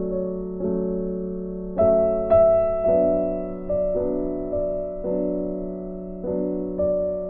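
Background piano music: slow notes and chords struck every half second to a second, each ringing out and fading before the next.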